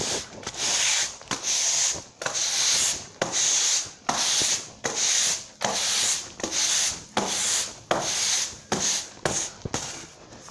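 Broom sweeping a concrete shop floor in brisk, repeated scraping strokes, about two a second.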